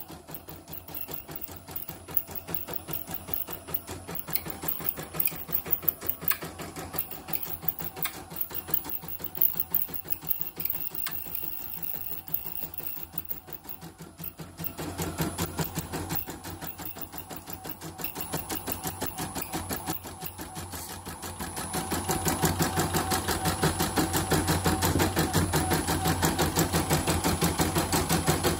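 CNY E900 embroidery machine stitching on a test run, its needle-bar mechanism and belt-driven handwheel clattering in a fast, even rhythm. The run picks up and gets louder about halfway through, and again near the end.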